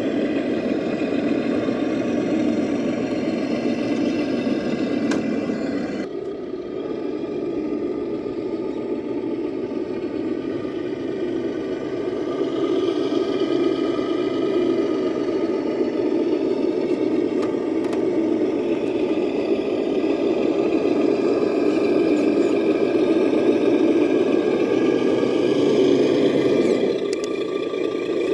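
Electric RC crawler truck driving: the steady whine of its motor and gears, over a constant rumble. The whine rises and strengthens a couple of times as the throttle changes.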